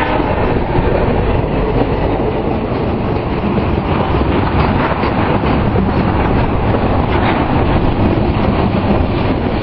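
Freight cars of a passing train rolling by close up: a steady, loud rumble of steel wheels on the rails, with short clacks as the wheels cross rail joints.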